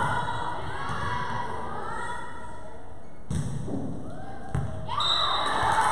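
Volleyball rally: the ball thuds as it is hit, sharply about three and a half and four and a half seconds in, while girls' voices call out on court and swell into shouting near the end.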